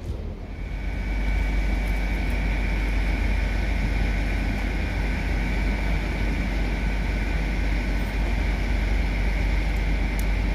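Diesel train running close by: a heavy engine drone that swells in about a second in and then holds steady, with a steady high-pitched whine over it.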